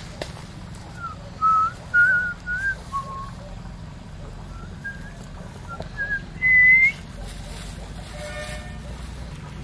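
A series of clear whistled notes, each short and wavering up or down in pitch, ending about seven seconds in on a longer, higher note that slides upward. A brief buzzy note follows near the end.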